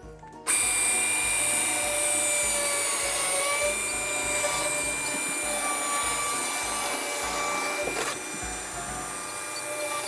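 Chainsaw of a chainsaw mill running steadily as it cuts along a log, starting suddenly about half a second in. Background music plays underneath.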